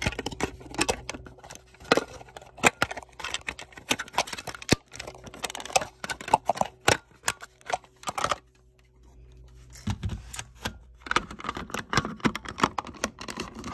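Hard plastic clicks, knocks and scrapes of a smoke alarm being handled and pushed onto its mounting bracket, with a pause of about a second a little past halfway.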